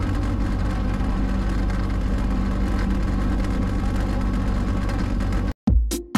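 Passenger boat's engine running steadily, a low drone with a steady hiss over it. The drone cuts off abruptly near the end, where electronic dance music with a heavy beat starts.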